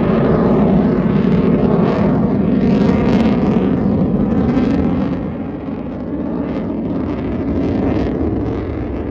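Roar of a Sukhoi Su-30 fighter jet's twin turbofan engines during a low display pass. It is loudest in the first half and eases a little about five and a half seconds in.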